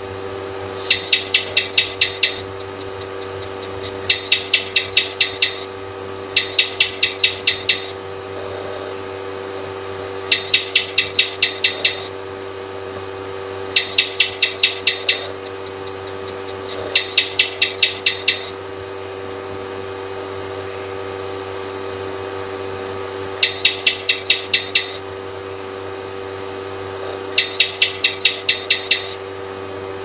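A lizard calling in bursts of about eight quick, sharp clicking chirps, each burst a little over a second long, repeated eight times at irregular intervals of a few seconds. A steady hum runs underneath.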